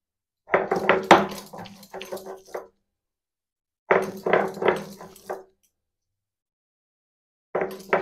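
Stone roller grinding cooked vegetables on a flat grinding stone (shil-nora), in three bursts of rough rubbing and knocking strokes.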